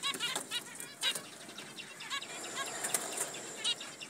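Zebra finches calling: many short, quick calls repeated throughout, with a few sharp clicks among them.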